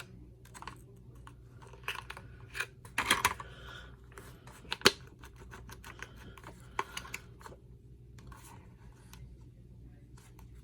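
A screwdriver prying and scraping at a tabbed plastic part on a Kirby G4 vacuum cleaner: scattered clicks and knocks, a flurry of scraping about three seconds in, and one sharp click just before five seconds.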